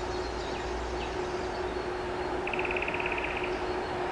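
Distant approach of an EP20 electric locomotive hauling a passenger train: a steady rumble with a steady hum, growing slowly louder. About halfway through, a bird gives a rapid trill about a second long, after two brief chirps.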